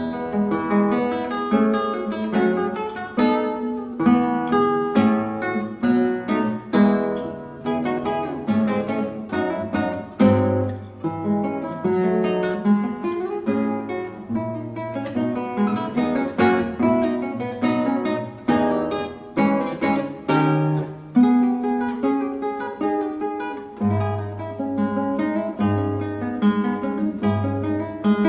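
Instrumental music on acoustic guitar: plucked notes in quick succession, with low bass notes pulsing near the end.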